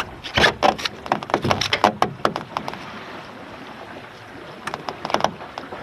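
A clatter of knocks and clicks from a Finn dinghy's hull, deck and rigging as the sailor shifts across the boat, dense for the first two and a half seconds, then a short burst again near the end, over a steady hiss of water and wind.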